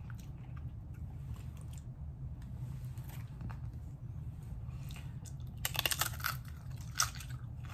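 Crunchy tortilla chip bitten and chewed: a quick cluster of crunches about six seconds in and one more a second later, over a low steady hum.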